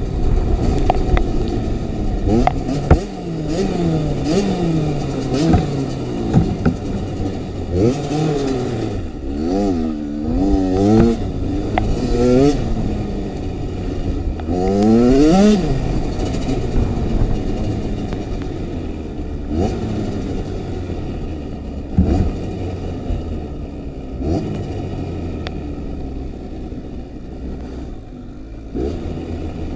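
2015 Kawasaki KX85's two-stroke single-cylinder engine revving hard and easing off again and again as it is ridden, with several quick rising runs of revs in a row around ten and fifteen seconds in. Occasional sharp knocks sound over the engine.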